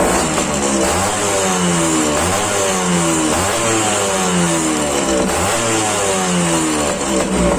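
Yamaha RXZ two-stroke single-cylinder engine with a power chamber exhaust being revved in repeated throttle blips, about once a second, the pitch falling away after each blip.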